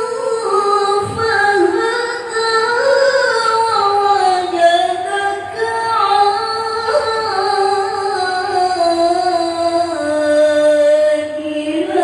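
Melodic Quran recitation (tilawah): one voice draws out a long ornamented melisma without a break. The pitch steps up and down and sinks lower toward the end before rising again.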